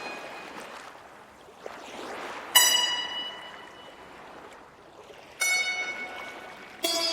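Ambient music intro: swelling, wave-like swooshes of noise, broken twice by a sudden bright bell-like chime about three seconds apart, each ringing and fading. Fuller music comes in near the end.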